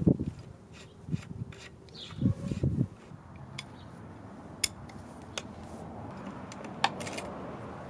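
A ratchet and socket being handled on a dirt bike's suspension linkage: a few dull knocks and rubbing in the first three seconds, then four sharp metal clicks roughly a second apart.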